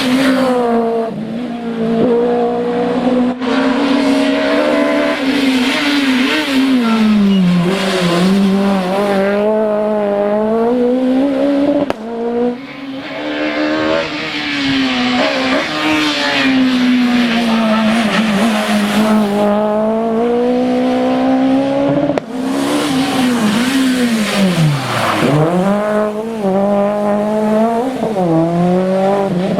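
Citroën C2 rally car engines being driven hard on a stage, revs climbing and dropping repeatedly through gear changes and braking, with some tyre squeal. The sound cuts abruptly a few times, about 3, 12 and 22 seconds in, as it jumps between passes.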